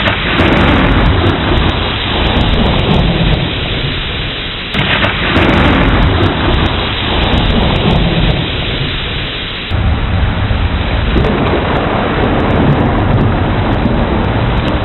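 Heavy rain falling steadily with rolling thunder rumbling underneath. The sound shifts abruptly twice, about five and ten seconds in.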